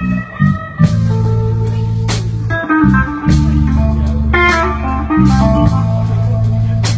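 Live band music: an electric guitar plays held notes over drums and low bass notes, with several sharp cymbal or drum hits.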